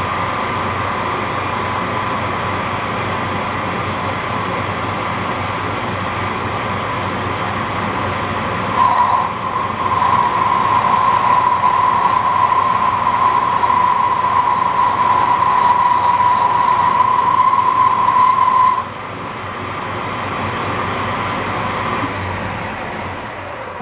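Metal lathe running with a single-point tool cutting a chamfer on a cast iron plate. About nine seconds in, the cut sets up a loud, steady high squeal, which stops abruptly some ten seconds later. The lathe runs on more quietly after that.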